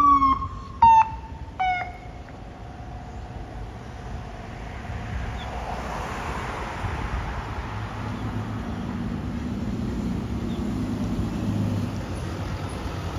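Three short horn blasts from an emergency vehicle, each a little lower in pitch than the last, then a large vehicle's engine slowly growing louder as it approaches.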